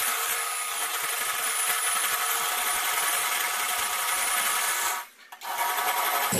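Electric hand mixer running steadily, its beaters whisking egg whites in a glass bowl toward soft peaks. The motor whine cuts out for a moment about five seconds in, then carries on.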